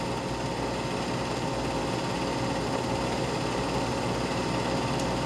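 Steady mechanical whirring hum of a running 8 mm film projector, even and unchanging, with a small click near the end.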